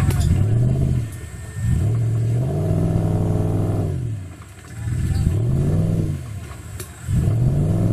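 Off-road 4x4's engine revving in about four surges, each rising and falling in pitch as the throttle is blipped and released, with a few sharp knocks.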